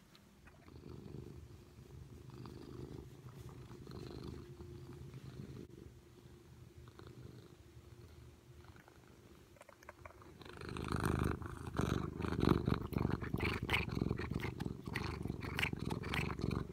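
Domestic cat purring close to the microphone, much louder from about ten seconds in, with rubbing and crackling as the cat's face presses against the phone.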